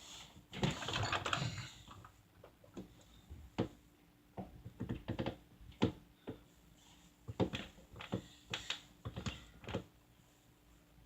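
Scattered light clicks and taps at an irregular pace, with a short rustling stretch about a second in.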